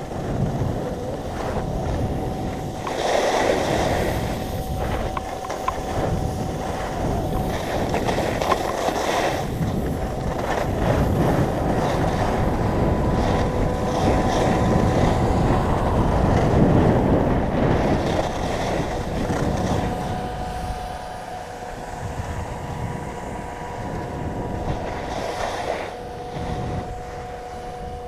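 Wind rushing over an action camera's microphone and skis hissing over groomed snow during a downhill run on a piste. The noise swells with speed and eases off in the last third as the skier slows, with a few faint steady whistling tones on top.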